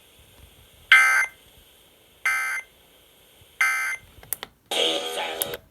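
Emergency Alert System end-of-message signal: three short, identical warbling digital data bursts about a second and a third apart, marking the end of the alert. A few clicks and a brief snatch of other radio audio follow near the end.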